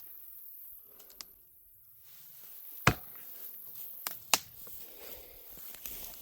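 A few sharp wooden knocks during tree felling, with the chainsaw shut off: one loud knock about three seconds in, then two more in quick succession just after four seconds.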